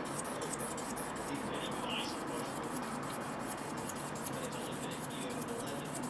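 Steady rubbing hiss of a hand working against a pen blank spinning on a small wood lathe, sanding or finishing the wood, with a fast, even ticking underneath.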